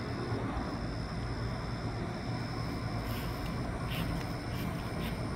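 Steady outdoor background noise with a low hum, a high, thin tone that breaks on and off, and a few faint ticks in the second half.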